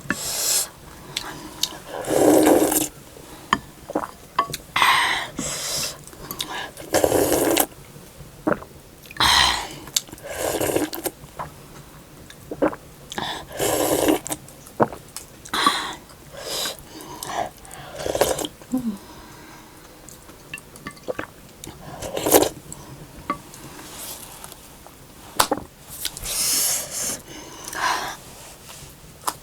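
Close-up eating sounds: about a dozen short slurps of hot rildok soup, one every second or two, with chewing and small clicks in between.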